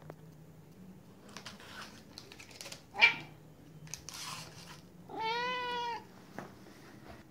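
Siberian cat giving one soft meow about a second long, rising and then falling in pitch, about five seconds in. Before it come some rustling and a short, sharp sound about three seconds in, louder than the meow.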